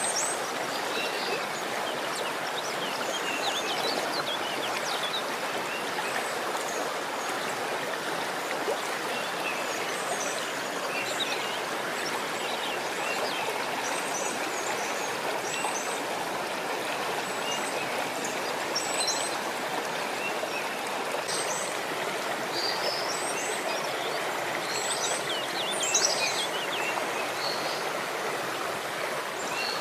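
Steady rush of running water, with many brief high bird chirps scattered over it.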